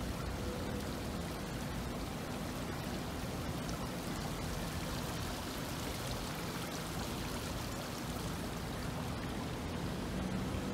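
Steady rushing hiss of outdoor ambience, with a faint low hum near the start and end.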